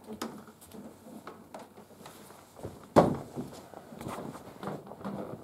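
Bare footsteps and soft knocks on a floor mat, with one loud thump about three seconds in.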